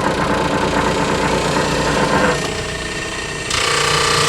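SuperMax 19-38 drum sander running with a steady machine drone. A little over two seconds in the sound drops and thins, and about three and a half seconds in it comes back louder with a new steady higher tone.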